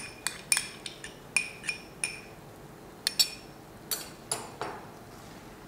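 A spoon clinking against a small glass bowl as ghee is scraped out into a pot of chickpea curry: about a dozen sharp, ringing clinks at irregular spacing, close together in the first two seconds and fewer after.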